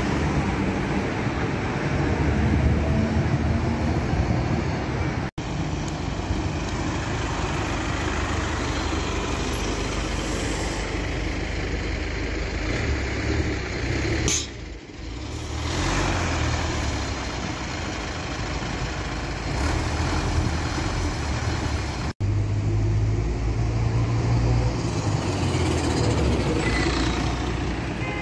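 City street traffic, with cars and buses passing, in three clips cut together about five seconds in and about three quarters of the way through. After the second cut a MAN SL223 city bus's diesel engine runs close by with a low rumble as the bus pulls away.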